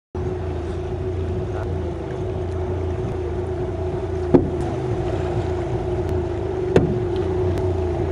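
A steady engine hum with a low rumble under it, with two sharp knocks, the first a little past halfway and the second about two and a half seconds later.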